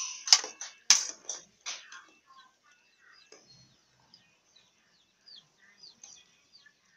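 A metal ladle stirring soup in an aluminium pot, knocking against the pot four or five times in the first two seconds. Small birds chirp faintly in the background through the rest.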